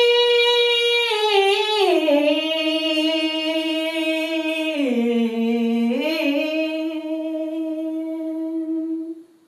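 A woman's unaccompanied voice holding long sung notes: a high held note that steps down after about a second, dips lower around the middle, then rises to another long held note that fades out near the end.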